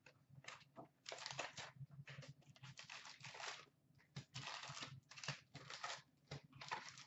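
Cardboard trading-card hobby box being torn open and handled, with foil card packs crinkling as they are lifted out: an irregular run of short tearing and crinkling noises.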